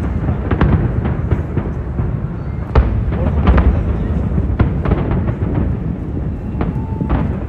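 Fireworks display going off: an irregular run of booms and cracks over a continuous low rumble, with crowd voices underneath.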